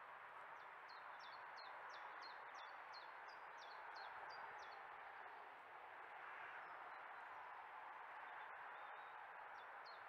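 A small songbird singing a run of about a dozen short, high, repeated notes, about three a second, for the first few seconds, with a few more near the end, over a steady hiss.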